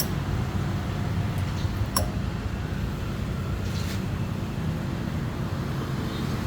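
Espresso machine running with a steady low hum during warm-up, with a light clink about two seconds in.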